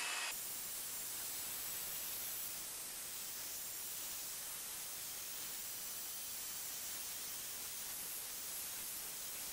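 Ryobi PE1600 single-action electric polisher running with its sponge pad pressed on the car's painted bonnet, a steady, even hiss with a faint high whine.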